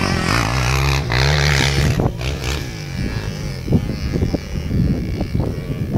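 Motocross bike engine revving, its pitch rising and falling, then running more unevenly and a little quieter after about two seconds.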